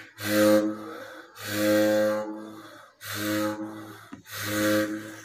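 Brass morchang (jaw harp) being played: a low twanging drone with bright, shifting overtones, plucked in four strong strokes, each ringing and fading before the next.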